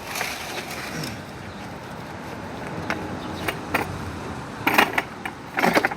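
A 2016 Toyota Camry transmission being turned over by hand: a few sharp metal clicks around the middle, then two louder clusters of clunks and knocks near the end.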